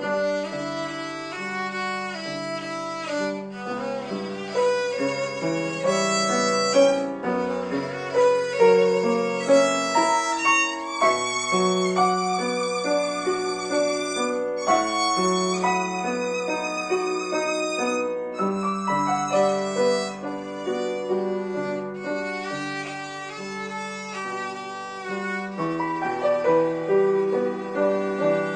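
Violin playing a melody with vibrato on long held notes, accompanied by piano.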